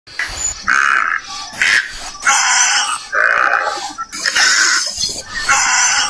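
An animal calling loudly over and over: about seven short, rough calls, one every half second to a second.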